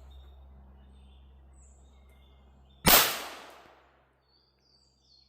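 A single .22 gunshot, one sharp crack about three seconds in with a short ringing tail, fired at a motorcycle helmet.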